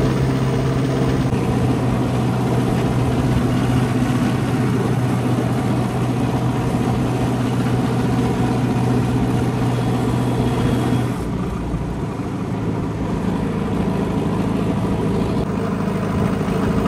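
Tractor diesel engine fitted with a new aftermarket silencer, running steadily on the road. About eleven seconds in, its pitch drops a little as the engine eases off.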